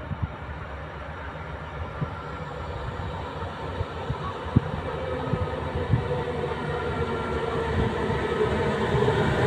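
BG VOZ commuter train, locomotive-hauled, approaching along the platform: a low rumble that grows steadily louder, a hum building in the second half, and a few sharp knocks along the way.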